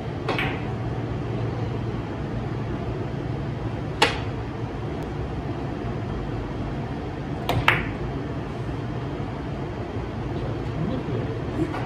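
Carom billiard balls clacking: a cue tip striking the ball and the balls hitting each other, as a few sharp, short clicks spread several seconds apart, with a quick pair past the middle. Under them runs a steady background hum.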